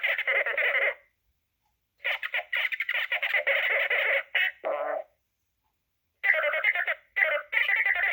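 Droid Depot astromech droid's orange personality chip playing beeps and warbling chirps in three bursts separated by short silences. The last burst has fast-trilling chirps.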